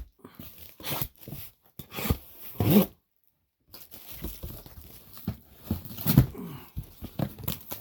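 A cardboard mystery box being torn open and its contents rustled and handled, with bursts of tearing and crinkling.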